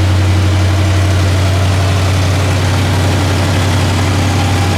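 A motor vehicle's engine running steadily with a strong, deep hum.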